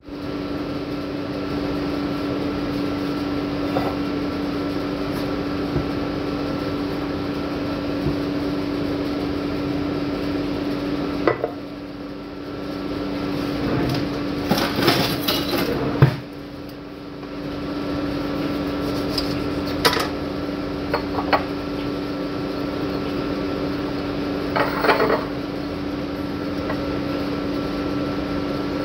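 Steady mechanical hum from a kitchen appliance or fan, with scattered sharp clinks and knocks of glass and utensils handled on the counter. The hum drops out for several seconds a little before the middle, while the knocks cluster.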